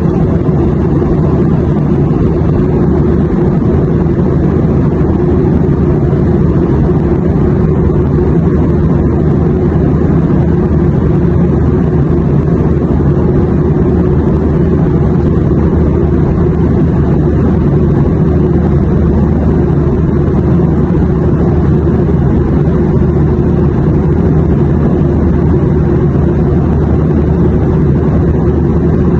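Airplane noise: a loud, steady, deep drone with no breaks or changes.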